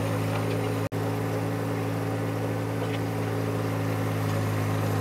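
John Deere 1025R compact tractor's three-cylinder diesel running steadily under load while it pushes a land leveler through a gravel driveway, the gravel scraping and crunching under the blades. The sound cuts out for an instant about a second in.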